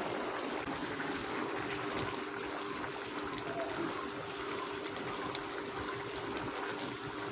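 Curry simmering in a pan on a gas burner: a steady bubbling hiss, with a faint steady hum underneath.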